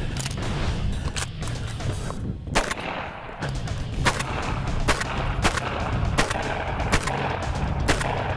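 Single gunshots fired from a long gun and then a pistol, about nine shots spaced half a second to a second apart, over background music with a steady beat.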